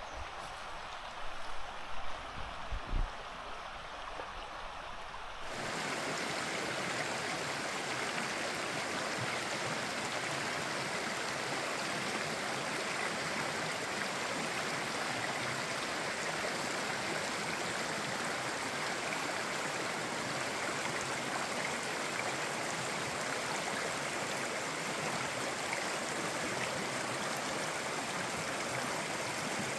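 Mountain stream rushing, a steady wash of water noise that jumps louder and fuller about six seconds in. A few low thumps come in the first three seconds.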